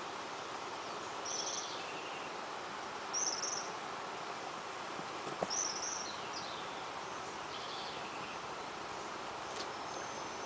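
Outdoor ambience: a steady hiss with a bird's short high chirps repeating every couple of seconds.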